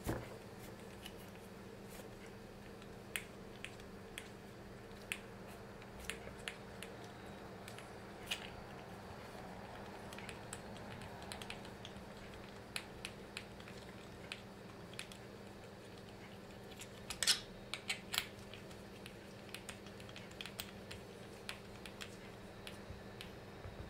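Small, irregular clicks and ticks of a hex screwdriver turning an M3 bolt as a nut is screwed into a 3D-printed plastic adjustment wheel, with a couple of louder clicks about three-quarters of the way in. A faint steady hum lies underneath.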